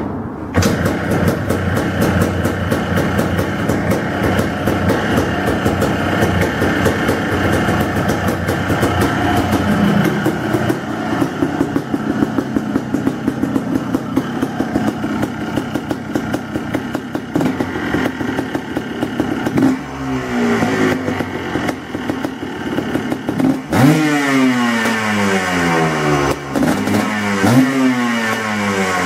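2005 Yamaha Blaster's 200cc single-cylinder two-stroke engine, breathing through an FMF Powercore 2 exhaust, starts about half a second in and idles with a fast rapping beat on its startup after a rebuild. In the last ten seconds the throttle is blipped a few times, the revs jumping sharply and falling back.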